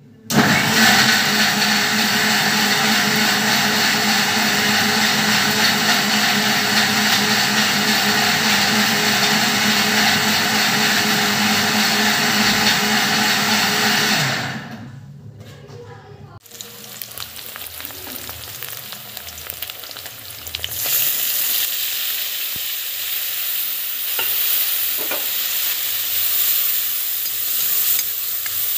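Electric mixer grinder running loud and steady for about fourteen seconds, then stopping. Then paneer cubes sizzle in oil in a kadhai, growing louder about twenty seconds in.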